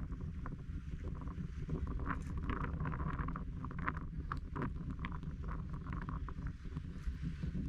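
Seaside ambience: small waves lapping and splashing irregularly over a steady low rumble, with wind on the microphone.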